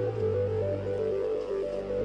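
Background electronic music: a synthesizer melody of quick stepping notes over held bass notes.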